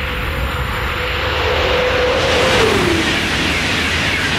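High-speed train passing at speed: a loud rushing noise that peaks about two and a half seconds in, with a steady whine that drops in pitch as it goes by.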